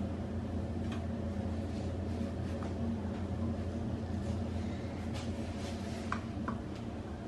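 Steady low machine hum, with a few faint light clicks about a second in and again between five and seven seconds in.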